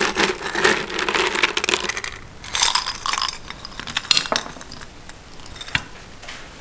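Many small pieces of hard candy clattering and clinking together in two busy bursts, then a few single clicks.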